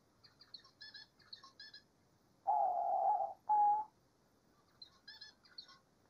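Diamond dove cooing: a long note followed by a shorter one at about the same pitch. Quieter, high, quick chirping comes before and after.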